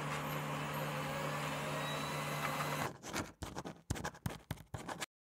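A steady hum with hiss for about three seconds, then a run of quick, irregular scratching strokes of a marker pen writing on a board, which stop abruptly near the end.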